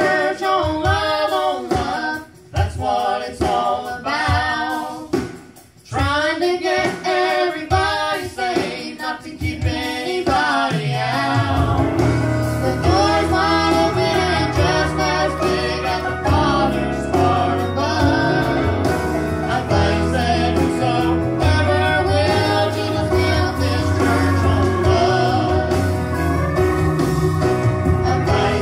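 Gospel song sung by a man and a woman through microphones with instrumental accompaniment. The first few phrases are sparse with brief breaks, and about ten seconds in the accompaniment fills out with a steady bass line under the voices.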